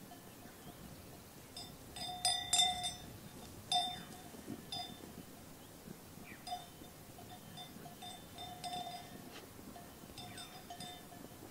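Bells worn by grazing sheep clanking at irregular intervals, with a busier cluster of strikes about two to four seconds in.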